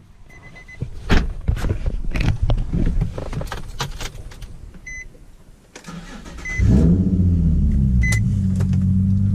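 Clicks and knocks, then a V6 engine breathing through a Tomei exhaust and ISR Y-pipe starts about two-thirds of the way in and settles into a steady idle. A short electronic chime beeps about every second and a half.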